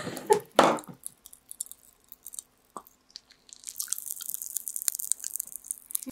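Popping candy crackling in an open mouth held close to the microphone: a dense, high, fizzing crackle of tiny pops that sets in about three and a half seconds in. Near the start, two loud short mouth noises.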